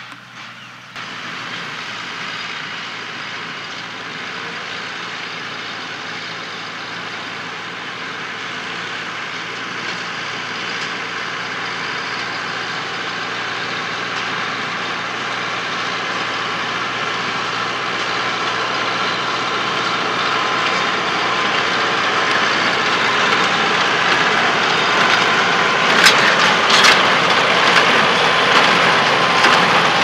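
Renault 8014 tractor engine running with a working New Holland 285 small square baler behind it, a steady mechanical clatter. The sound comes in sharply about a second in, grows steadily louder as the rig comes closer, and has a few sharp knocks near the end.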